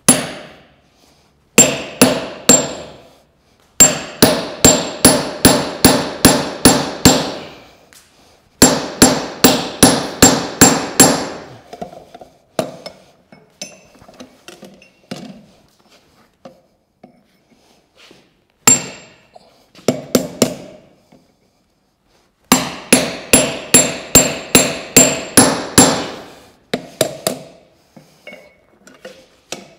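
Hand hammer striking red-hot steel clamped in a vise, each blow ringing metallically. The blows come in volleys of about three a second with short pauses between, and there are lighter, scattered taps around the middle and near the end.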